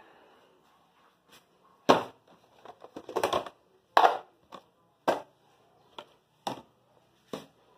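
Bowls and dishes knocking and clattering as they are handled during food preparation: a run of sharp separate knocks, the loudest about two and four seconds in, the rest lighter and spaced about half a second to a second apart.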